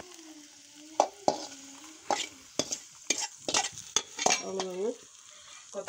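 Metal spoon stirring hot oil tempering in a steel pan, clinking and scraping against the metal several times over a light sizzle. The tempering is mustard seeds, curry leaves, dried red chillies and sautéed small onions.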